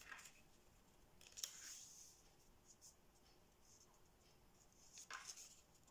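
Faint rustle of thin kami origami paper under the fingers as a diagonal fold is creased and smoothed flat: three short brushing strokes, one at the start, one about a second and a half in, and one about five seconds in.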